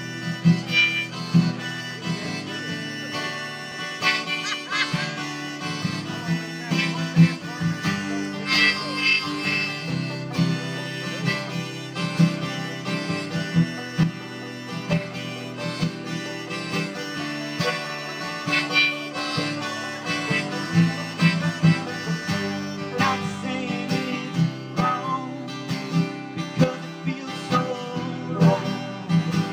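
Live bluegrass-style music: an acoustic guitar strummed and a five-string banjo picked together, with a higher melody line coming in and out above them.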